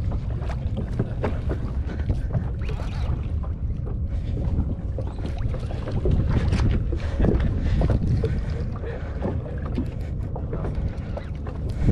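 Boat's engine running low and steady, with wind on the microphone and irregular clicks and knocks from the rod and reel being handled while fighting a hooked fish.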